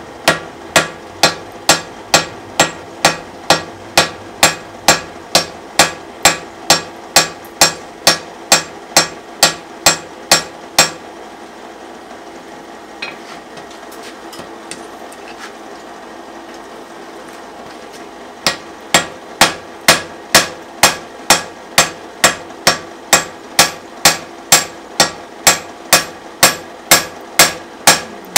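Hand hammer striking a red-hot wrought iron hammer blank on an anvil in an even rhythm of about two blows a second. The blows stop for about seven seconds midway, then resume at the same pace.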